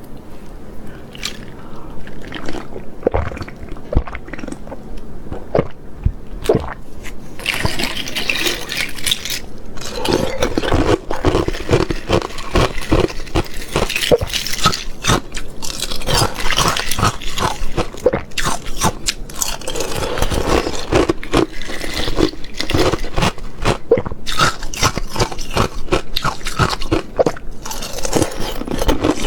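Thin ice being bitten and chewed close to the microphone: a steady run of crisp crunches and crackles, sparser at first and denser from about seven seconds in.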